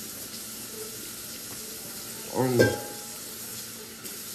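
A person biting into and chewing a sandwich, with a short vocal noise from the eater a little past halfway, over a steady background hiss.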